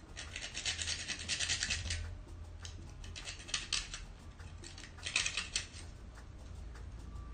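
Whole nutmeg being grated on a small hand grater: quick rasping scrapes in three spells, with short pauses between them.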